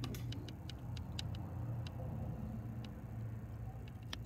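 Scattered light clicks and ticks, a dozen or so at uneven intervals with a sharper one near the end, over a steady low hum.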